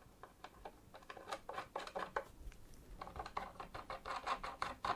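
Faint, irregular clicks and scrapes of cooler standoffs with knurled plastic grips being screwed in by hand through a motherboard into its AM4 backplate.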